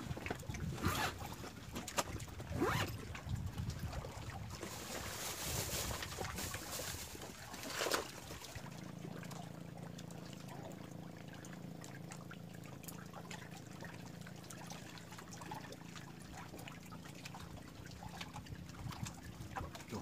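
Choppy reservoir water lapping and splashing against a floating bamboo fishing platform, with gusts of wind on the microphone. About halfway through the gusts die down and a steady low hum sets in.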